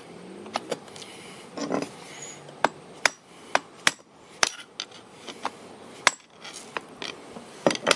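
Light hammer taps on a steel drift held against a car starter motor's aluminium drive-end housing: about a dozen sharp metallic knocks at uneven intervals, driving the housing off the motor case to dismantle the starter.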